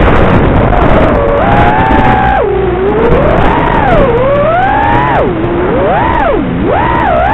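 FPV racing quadcopter's brushless motors whining, the pitch swooping up and down quickly again and again as the throttle changes, over a steady hiss of rushing air.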